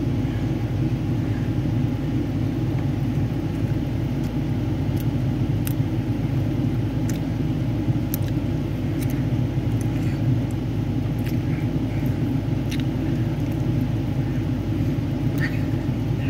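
Steady low mechanical rumble with a faint hum, unchanging, with scattered faint soft clicks over it.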